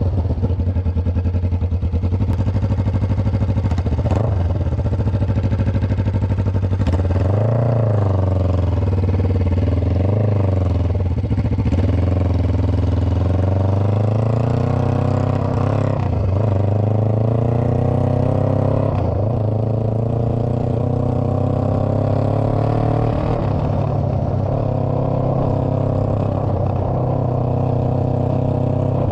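Kawasaki Ninja 500R's parallel-twin engine running under way, its revs dipping and climbing with the throttle, with a long rise in pitch about halfway through and another near the end.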